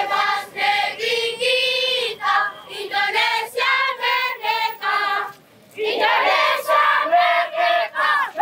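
A group of children's voices chanting together in unison in short, loud phrases, with a brief pause a little past five seconds in.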